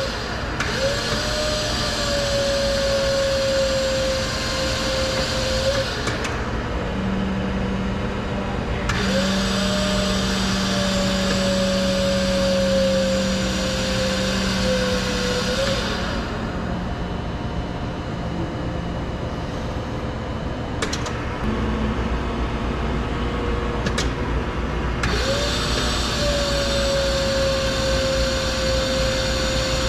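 Forklift hydraulic pump whining under load as the mast and carriage are worked, in three runs of several seconds. Each run starts with a short rising whine, then holds a steady whine over mechanical noise, with quieter spells between runs.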